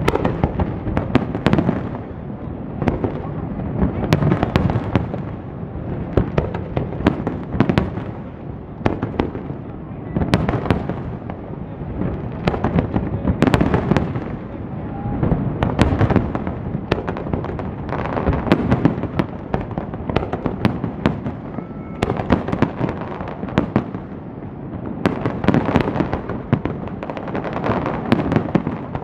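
Aerial fireworks display: many firework shells bursting in quick succession, sharp bangs one after another over a continuous low rumble.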